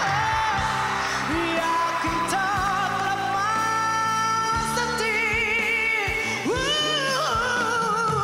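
A woman singing into a microphone over backing music, holding long notes with vibrato; about two-thirds of the way through her voice slides up to a high held note.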